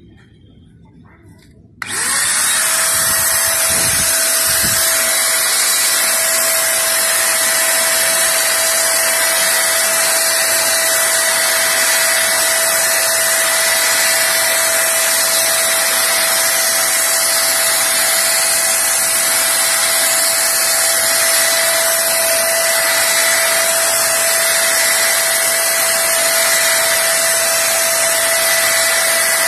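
Total 350W electric paint sprayer switched on about two seconds in, its motor spinning up and then running steadily with a high whine over a strong hiss of air while it sprays paint.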